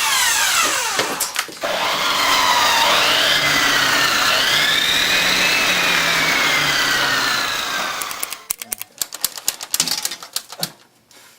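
Corded circular saw running, its whine falling as it winds down, then revving back up and wavering in pitch for several seconds before cutting out about eight seconds in. Irregular knocks and clatter follow.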